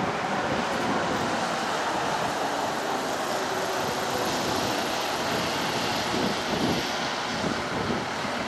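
Steady road traffic noise, with a city bus driving past close by.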